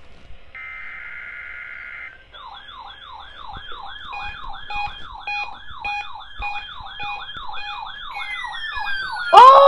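NOAA weather radio test: about a second and a half of warbling digital alert-header tones, then from about two seconds in the ER-210 weather radio's alert siren (the ER-50 siren) sounds as a fast, evenly repeating electronic warble. Near the end, falling-pitch tones join it and a much louder short siren-like burst cuts in.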